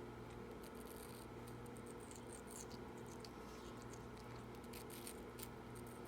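Indian ringneck parakeet nibbling and chewing watermelon with its beak: faint, irregular soft crackles, over a steady low hum.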